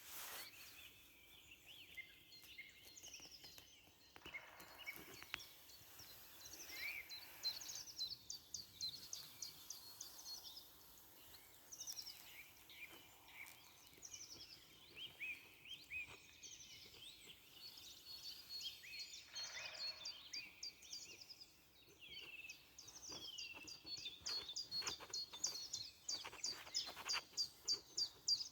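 Woodland birdsong from several songbirds: varied whistled phrases and fast runs of repeated notes, growing busier near the end.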